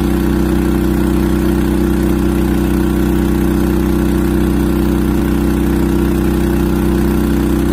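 Honda engine of a Koshin SERH-50Z high-pressure water pump running steadily at constant speed while it drives water through a long hose to a sprinkler.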